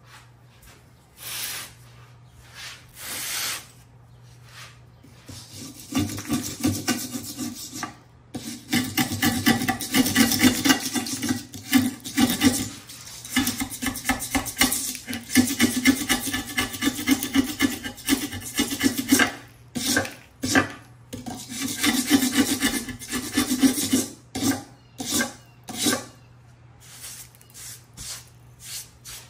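Steel blade of a hand floor scraper scraping flaky old kiln wash off a ceramic kiln shelf, a rasping scrape. A couple of short scrapes come first, then about six seconds in rapid back-and-forth scraping runs for some twenty seconds before tapering to a few separate strokes.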